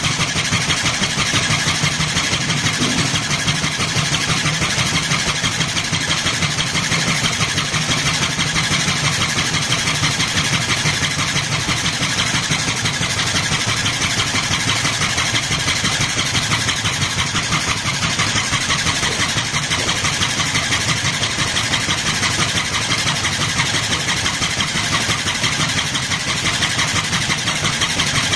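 Homemade air pump running: a 12 V, 300 rpm DC gear motor whirring steadily as it drives a syringe plunger back and forth through a wire crank, giving a fast, even pulsing. It is pumping air into a balloon.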